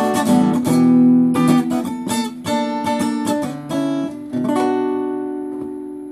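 Acoustic guitar playing the closing chords of a song, strummed and picked, with no singing; the last chord, struck about four and a half seconds in, rings out and slowly fades.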